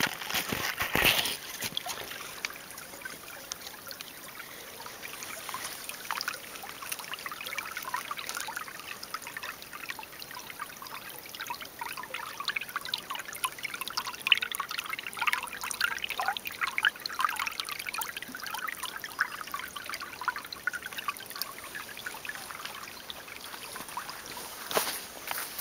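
Shallow creek trickling and babbling over stones and debris, a steady fine crackle of running water. A few sharper, louder sounds stand out in the first second or two and again near the end.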